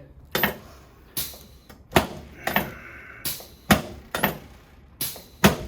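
Irregular sharp clacks and knocks, about nine in five seconds, from a chiropractic treatment table being worked as its head piece comes up and the patient shifts on it.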